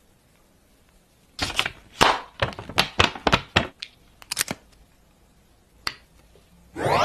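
Hinge of an Oppo Find N3 Flip foldable phone clicking as the phone is flipped open and shut by hand, a quick run of about ten sharp clicks. A single click follows near the end as the USB-C charging cable plugs in, and a rising sweep starts right at the end.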